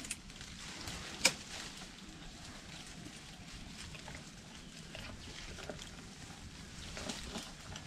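Asian elephant feeding from a tree: leaves rustling and twigs cracking as its trunk pulls the branches down, with one sharp crack about a second in.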